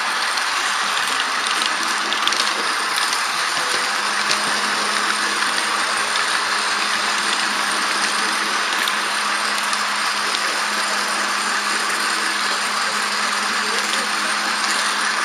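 H0-scale model locomotive running along the track, heard from on board: a steady mechanical hum with a constant low tone from its motor, gearing and wheels on the rails.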